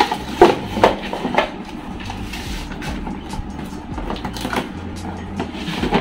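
Cardboard boxes and packaging being handled and set down on a hard floor: a few sharp knocks and rustles in the first second and a half, then lighter handling noises, over a low background rumble.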